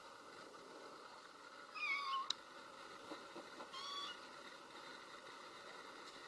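A young kitten meowing twice, two short high calls about two seconds apart, the first bending in pitch and the second a little shorter; a kitten's call for its absent mother. A small click follows the first meow.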